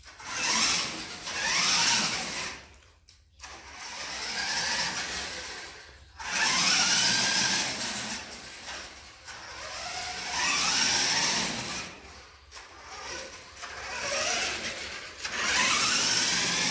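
The electric motor and gear drive of a 1990 Kyosho Double Dare RC monster truck whining in repeated bursts of throttle. The pitch rises with each acceleration, with brief pauses between runs.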